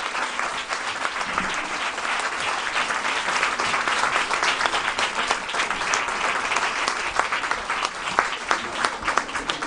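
Audience applauding, a dense run of clapping that thins into more separate claps near the end.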